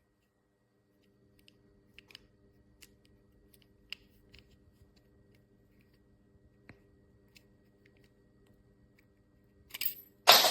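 Light metallic clicks and taps of a Leatherman multi-tool and its pocket clip being handled, over a faint steady hum, then a loud burst of handling noise near the end.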